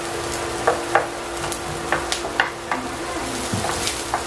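Sliced onions frying in hot oil in a pan, sizzling steadily, with irregular clicks and scrapes of a wooden spatula stirring them.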